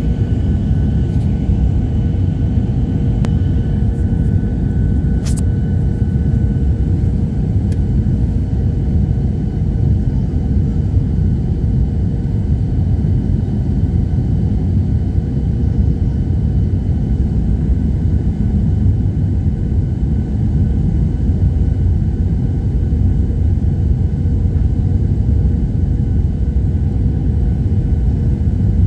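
Steady low rumble of a turbofan airliner's engines and airflow heard inside the cabin during descent on approach to landing, with a faint steady whine above it. A few light clicks come in the first several seconds.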